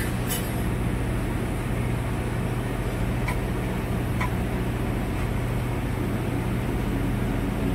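TIG welding arc burning steadily along a pipe joint: an even hiss over a low, steady hum.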